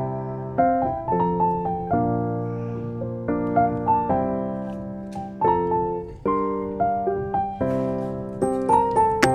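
Background piano music: struck notes and chords that fade after each strike, changing every half second or so in a gentle melody.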